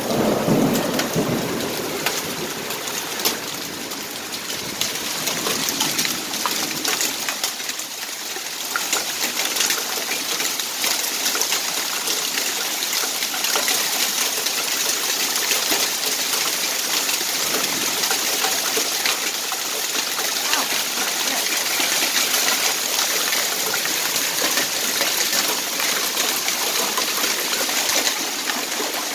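Hail and rain pelting a concrete pavement: a steady, dense patter of countless small ticks.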